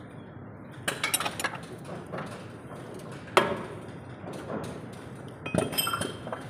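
Steel combination wrench clinking on a truck engine-mount bolt and bracket as it is fitted and turned. Clusters of metallic clinks come about a second in and again near the end, with one sharp ringing metal strike about halfway through.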